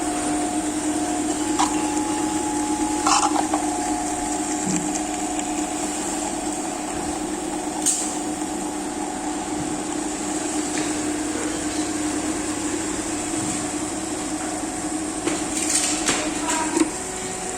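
T806A motorcycle cylinder boring machine running with a steady hum. A few light clicks and knocks come about a second and a half in, around three seconds, around eight seconds, and several near the end.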